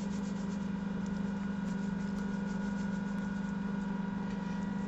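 Microwave oven running with a steady hum while it cooks, with faint light ticks of salt being sprinkled in the first second.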